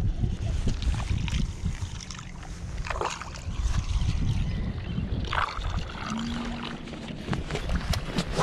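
Wind buffeting the microphone over water lapping and slapping against the hull of a small fishing boat, with scattered knocks and a couple of brief splashes.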